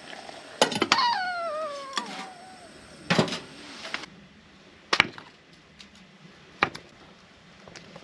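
Knocks and clinks of cookware being handled, with a squeak about a second in that slides down in pitch over a second or so, followed by three separate knocks a second or two apart.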